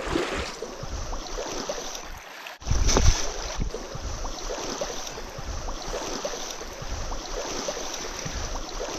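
Shallow mountain stream running over rocks, with wind and handling noise on the microphone and a sharp knock about three seconds in.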